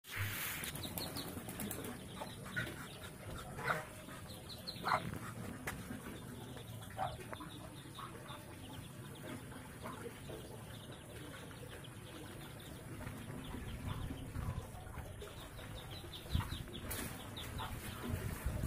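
Scattered short bird calls over a low background noise.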